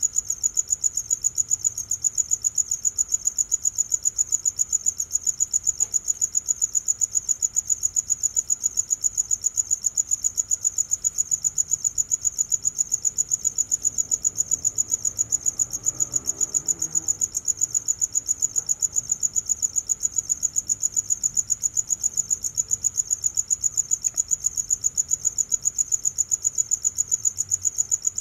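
Cricket chirping: a high, steady trill that pulses evenly about four times a second without a break.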